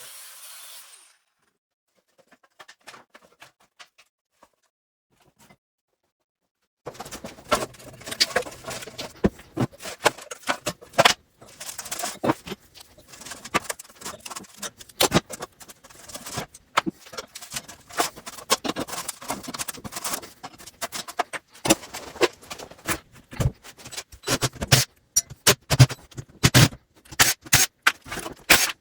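Irregular metal clanks, scrapes and rattles of a refrigerator being pulled apart by hand. A hiss cuts off about a second in, and it is nearly quiet for several seconds before the clattering starts.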